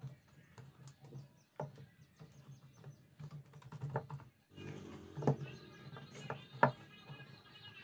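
Paintbrush dabbing and stroking a liquid coating onto a fiberglass baluster mould: irregular soft taps and brushing, with a few louder knocks. About halfway through a steady background hum joins.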